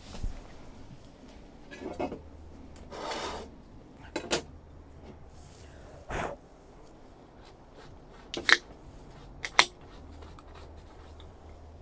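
Scattered clicks and knocks of cookware and tableware being handled, with one brief scrape about three seconds in and two sharp, louder clicks near the end.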